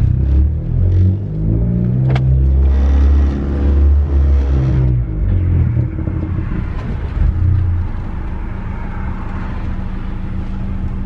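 Honda Accord 1.5-litre turbo four-cylinder engine heard from inside the cabin while driving, its pitch rising and falling under acceleration for the first eight seconds or so, with one sharp click about two seconds in. It then settles to a steadier, quieter cruising drone with road noise.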